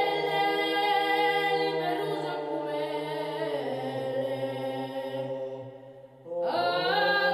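Unaccompanied male voices singing a slow chant in long held notes over a steady low drone. The singing breaks off briefly about six seconds in, then starts again.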